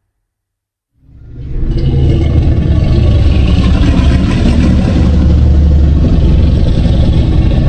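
Fan-made MonsterVerse Godzilla sound effect: after a second of silence, a loud, long rumbling sound with heavy deep bass swells in over about half a second and holds steady for about six seconds.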